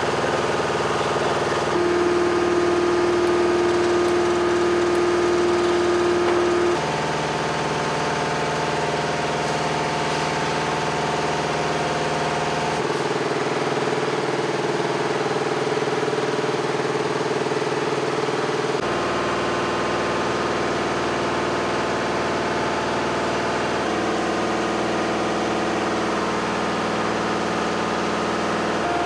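Steady hum of running machinery, engine-like, whose pitch and tone shift abruptly every five or six seconds.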